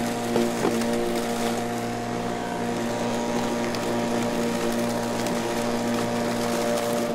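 Electric lawn mower running at a steady speed: a constant motor hum and whine over a rushing noise, with a few light clicks about half a second in.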